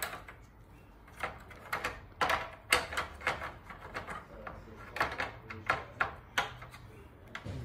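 Hard plastic grille parts knocking and clicking together as they are handled and slotted into place: a series of irregular sharp clicks and knocks.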